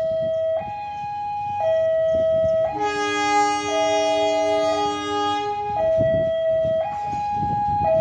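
A two-tone hi-lo siren alternating between its two notes about once a second. From about three seconds in to near six seconds, a louder multi-note horn chord sounds over it.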